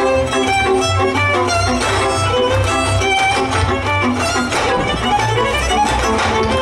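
Hungarian folk dance music from the Szatmár region, played by a string band: a fiddle melody over a pulsing bass and chordal accompaniment in a quick, steady dance rhythm.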